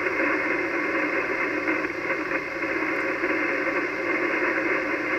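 Steady hiss of band noise from an Icom HF transceiver's speaker on the 80-metre band, cut off sharply above the narrow SSB voice passband, with no voice in it.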